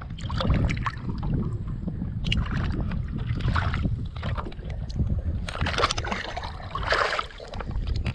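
Wind buffeting the microphone in a steady low rumble, with water splashing and lapping around a kayak in several short bursts.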